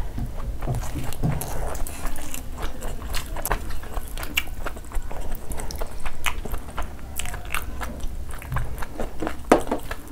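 Close-miked ASMR eating sounds of two people eating rice and spicy mutton curry by hand: chewing with a dense run of sharp clicks and mouth smacks.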